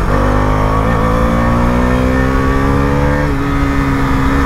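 Husqvarna 250's single-cylinder engine running through an aftermarket R1M-style exhaust as the motorcycle accelerates, its pitch climbing slowly. About three seconds in, the pitch drops and levels off.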